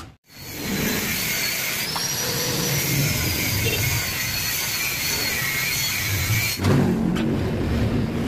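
A high, wavering whine over a steady hiss, like a power tool motor running, cutting off abruptly about six and a half seconds in. A lower hum with a few light clicks follows.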